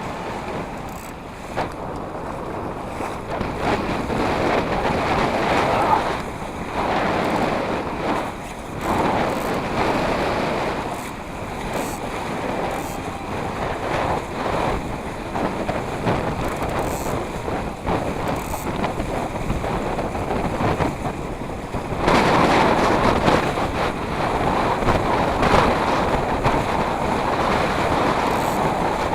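Wind buffeting the microphone with water rushing and splashing along a small sailing dinghy's hull under way, surging in gusts and loudest near the end.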